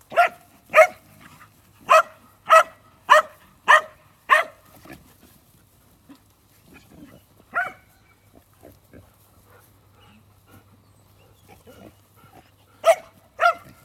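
Working farm dog barking in short, sharp single barks: a quick run of about seven in the first four or five seconds, one more a few seconds later, and two close together near the end, the barking of dogs working livestock.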